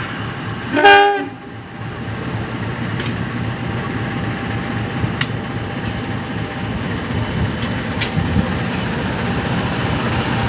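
A diesel locomotive horn sounds one short blast about a second in, its pitch falling. It is followed by the steady rumble of the shunting locomotive, with a few sharp clicks.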